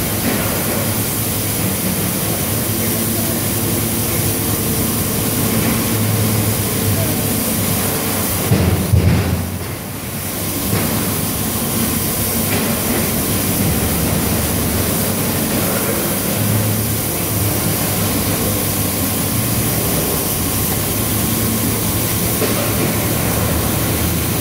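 Injection moulding machine running through its cycle: a loud, steady machine hum and hiss, with a louder surge of noise about nine seconds in followed by a brief lull.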